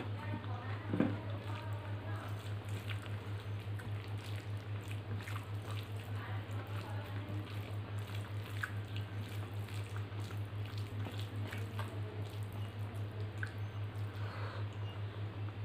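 Fingers mashing and mixing rice with lentil dal on a steel plate: soft wet squishing with small clicks, mixed with chewing and mouth sounds. Under it runs a steady low hum that pulses evenly a few times a second.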